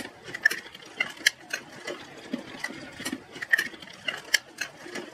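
Irregular light clicks and knocks, two or three a second, over a faint mechanical background.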